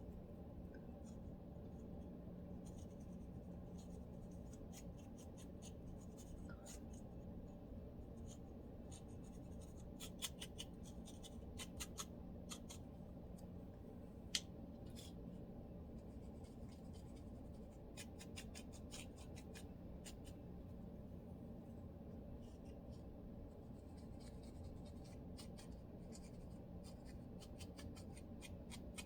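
Faint, short scratching strokes of a lice comb's teeth scraping through hair and dry, flaky scalp, coming in scattered runs, with one sharper click about halfway through. A steady low hum lies underneath.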